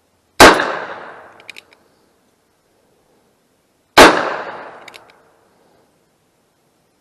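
Two gunshots about three and a half seconds apart, each followed by a decaying echo. About a second after each shot come a few faint, short, high-pitched ticks.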